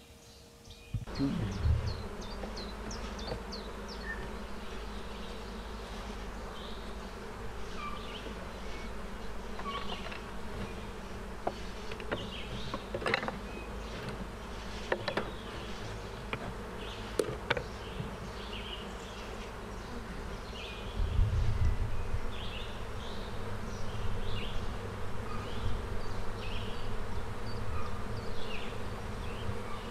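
Honeybees buzzing at an open hive, a steady hum of many bees. A few sharp wooden clicks come about halfway through as the hive frames are worked, and a low rumble joins in about two-thirds of the way through.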